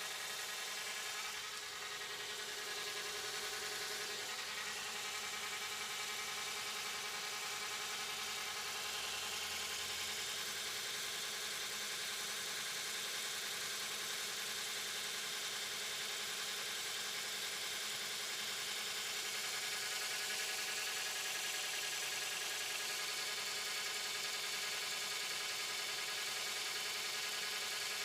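Steady whirring running noise of a Lexus RX450h hybrid, heard inside its cabin. The owner hears it coming only from the right wheel side and is unsure whether it is a knock or normal.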